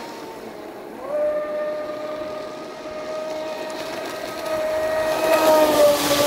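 Brushless electric motor of a ProBoat Voracity-E RC speedboat on a 4S pack, giving a high steady whine. The whine drops briefly at the start and picks back up about a second in. It grows louder near the end as the boat runs close by, with the hiss of its spray.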